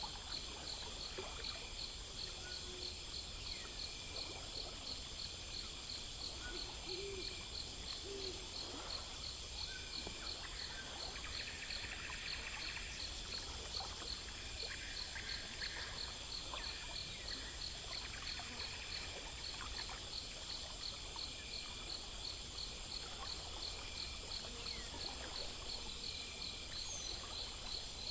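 Night insect chorus: crickets chirping in an even rhythm of about two to three chirps a second, with other insects trilling higher over a soft steady rumble. Two brief soft low hoots come about seven seconds in.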